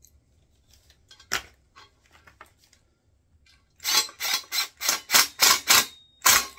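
A spanner tightening a nut onto a bolt through a steel wheelbarrow frame: one sharp metallic click about a second in, then from about four seconds a quick run of loud clicks, about three a second.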